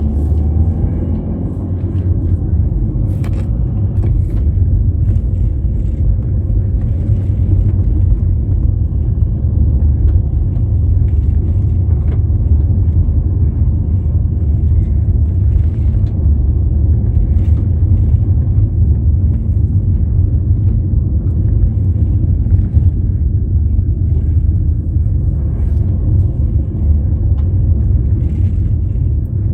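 A motor vehicle driving, a steady low rumble of engine and road noise with scattered light knocks and rattles.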